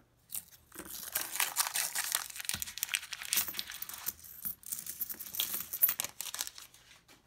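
A paper nickel roll wrapper is crinkled and torn open, and the nickels inside clink and slide against each other as they spill onto a coin mat and are spread out by hand. The sound is a dense run of paper rustling and small metallic clicks.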